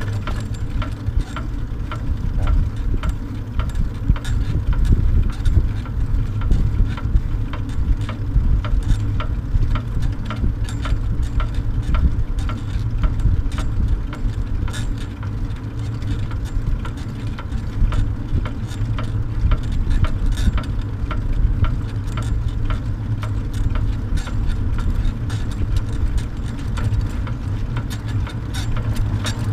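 Wind and road rumble on a bicycle-mounted camera while riding with a dog trailer on asphalt, with a regular light ticking throughout.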